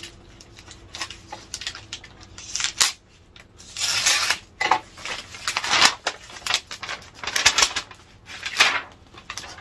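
Cardboard mailing box being opened and handled: its flaps and lid scrape and rustle in a series of short bursts.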